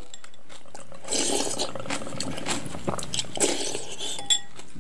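Spoon clinking against a ceramic bowl, with wet eating sounds from a mouthful of cooked rice soaked in cold water. There are sharp clicks throughout and denser spells of eating noise about a second in and again around three seconds in.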